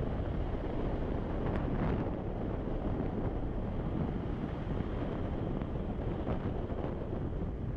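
Steady wind rushing over the microphone of a moving motorcycle, a Hero Xpulse 200, with road and engine noise blended beneath it.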